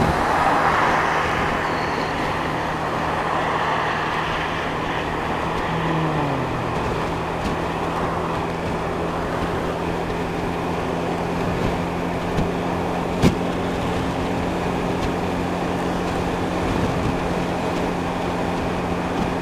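Motorcycle riding at steady motorway speed, heard through a microphone inside the rider's helmet: constant wind and road rush over a steady engine hum. A short falling tone comes about six seconds in, and a single sharp click around thirteen seconds.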